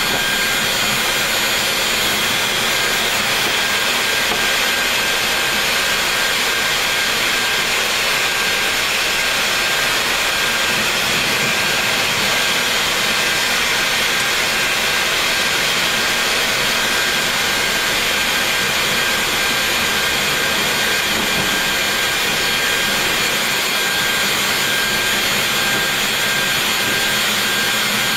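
Boeing 737 MAX's CFM LEAP-1B turbofans running at low taxi thrust as the airliner rolls along the runway, heard inside the cockpit as a steady rushing hum with a thin high whine over it.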